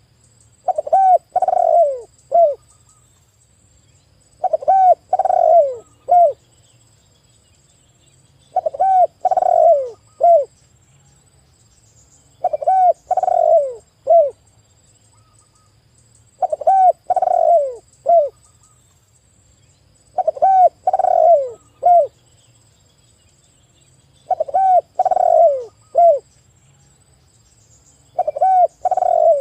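Spotted dove (tekukur) cooing over and over, a phrase about every four seconds: each phrase is a short note, a longer, louder middle coo and a short closing note.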